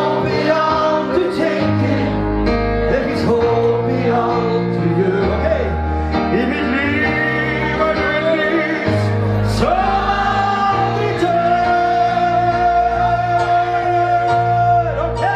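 Live male vocal with electric keyboard accompaniment: a Norwegian pop ballad sung into a microphone, the singer holding long notes over changing bass chords in the second half.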